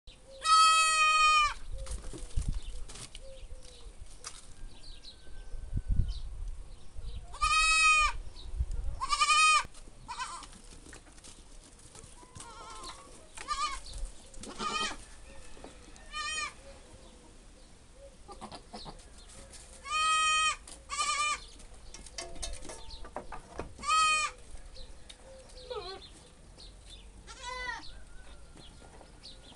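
Goats bleating: about six loud, drawn-out calls spaced several seconds apart, with fainter bleats in between. This kind of repeated bleating is typical of a doe in heat.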